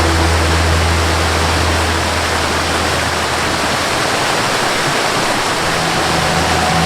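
Waterfall rushing: a loud, steady, even roar of falling water. Soft sustained melody notes fade out about a second in and return near the end.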